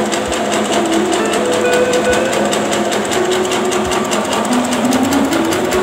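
Bakso meatball-forming machine running with a rapid, even mechanical clatter, under background music of held melody notes.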